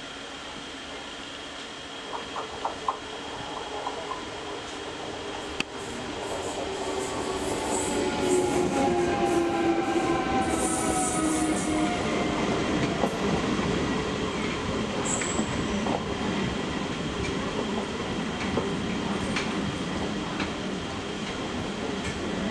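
Three-phase MEMU electric train running close alongside on the next track: its traction motors whine, with several tones sliding down in pitch, while the wheels click over rail joints and give brief high squeals. The sound grows louder about six seconds in.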